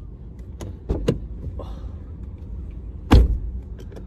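Knocks and clunks inside a car, two light ones about a second in and a heavy thump about three seconds in, over a steady low rumble.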